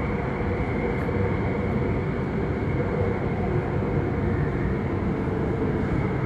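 MTR Tuen Ma line train running through a tunnel: a steady rumble of wheels on rail with a steady high whine above it.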